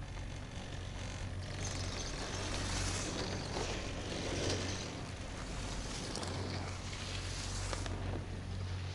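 Anzen Sakudo pair chairlift running: a steady low hum under a rushing noise that swells for about six seconds and then drops back.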